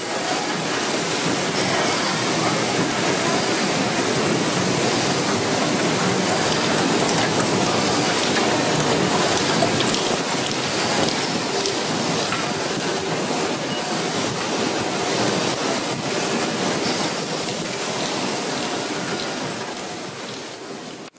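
Steady noise of automated stator-production machines running on a factory floor, fading out near the end.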